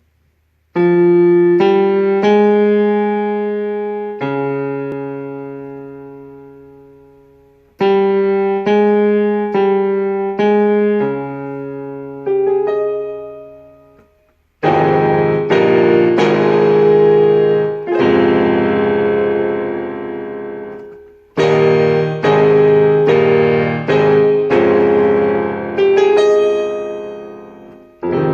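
Solo piano playing a slow R&B ballad melody: chords struck and left to ring out, in phrases separated by short pauses where the sound fades away.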